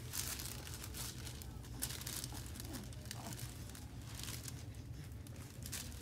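Paper liner on an exam table crinkling and rustling in irregular crackles as a baby is handled on it, over a steady low hum.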